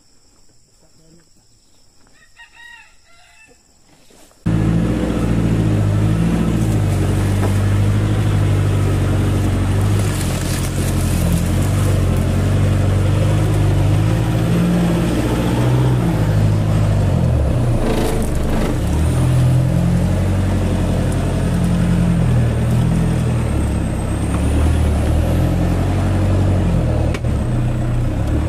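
A faint high insect drone and a rooster crowing, then about four seconds in a loaded Toyota Hilux pickup's engine cuts in suddenly and loudly, running steadily as the truck drives along a rough dirt track, its engine note rising and falling.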